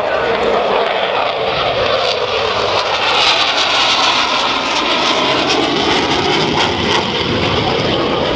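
F-22 Raptor's twin Pratt & Whitney F119 jet engines running loud as the fighter flies past, loudest about three to four seconds in when it is closest, with the pitch sliding down as it moves away.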